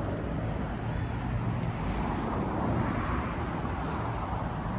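Steady road traffic noise, swelling slightly a few seconds in, under a constant high-pitched insect chorus.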